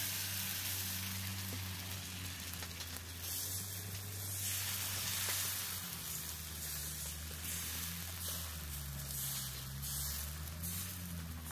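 Sweetened batter sizzling steadily in a hot, lightly oiled kadai as it is spread by hand into a thin gola ruti pancake.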